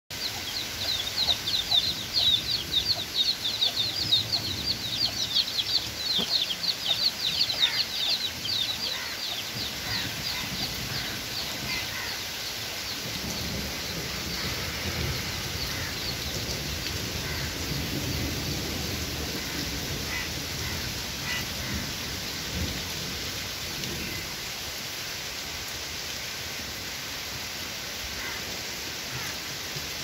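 Steady rain with a low rumble of thunder near the middle. For the first several seconds a flock of birds chatters in fast, high chirps that then fade away.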